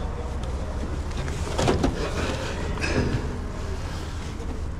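Handling knocks of a magnetic drill being set on a steel C-profile: two clattering knocks, about a second and a half and three seconds in, over a steady low rumble.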